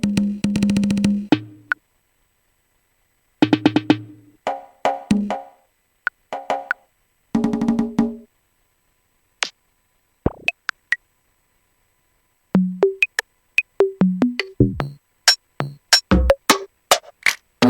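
Short pitched percussion and synth hits from Native Instruments Maschine 2.0, played in stop-start bursts of quickly repeated notes with silent gaps between them. Sparser single hits come in from about twelve seconds in and grow denser near the end.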